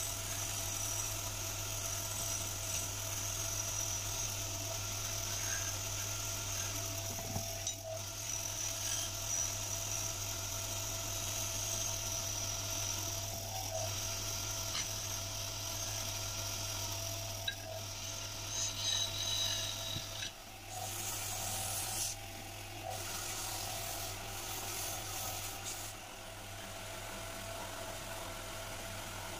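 Wood lathe running with a steady hum while a hand sands the spinning wooden spindle, giving a dry rubbing hiss over the motor.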